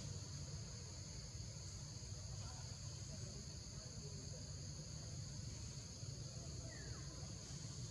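Steady high-pitched buzzing chorus of forest insects, over a low steady rumble.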